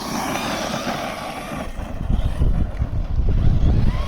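FTX Carnage 2.0 electric RC truck driving and jumping: a rushing noise of its motor and tyres, strongest in the first two seconds, over a gusty low rumble.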